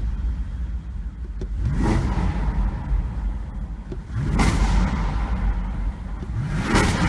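Audi RS7 Performance's twin-turbo V8 running at a raised idle just after starting, blipped three times while stationary, each rev climbing and dropping back in pitch.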